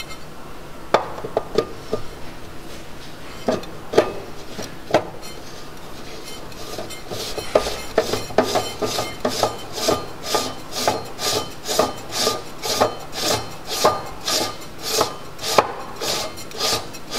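The primary baffle tube of a PlaneWave CDK17 telescope being screwed in by hand: a few scattered clicks at first, then a steady run of short rasping scrapes, about two a second, with each twist of the tube.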